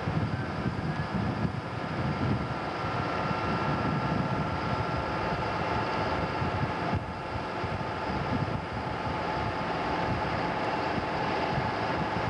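Twin V-16 Detroit Diesel engines of an old torpedo retriever running steadily under way: a continuous drone with a steady whine over an uneven low rumble.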